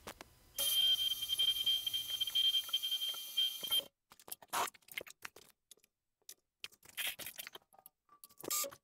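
Benchtop milling machine spindle running with a steady high whine for about three seconds, then stopping abruptly. Scattered clicks and taps follow as a drill bit is fitted into the drill chuck.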